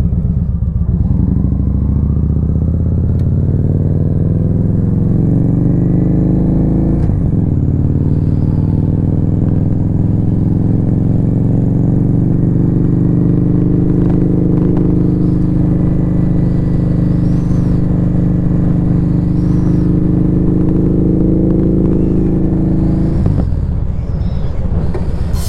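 Victory Highball motorcycle's V-twin engine under way, revs climbing as it accelerates, then dropping sharply about seven seconds in as it shifts up. It holds a steady cruise with slowly rising revs, and the revs fall away a couple of seconds before the end.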